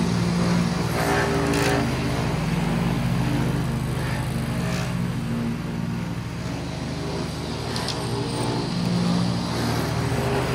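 Husqvarna Rider ride-on mower's engine running steadily while cutting grass with the cutting deck engaged, its level swelling and easing slightly.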